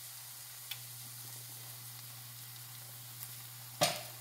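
Grated Jerusalem artichoke fritters (deruny) frying in shallow oil in a pan: a steady sizzle with a few small pops, the loudest a little before the end, over a low steady hum.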